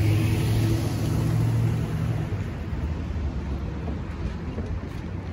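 A car passing close by, its engine hum and tyre noise loudest in the first two seconds, then fading as traffic moves off over the crossing.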